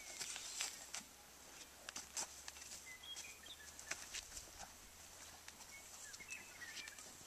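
Faint, irregular hoof and boot steps on a dirt pen as a horse is led at a walk, with small birds chirping in the background a few times.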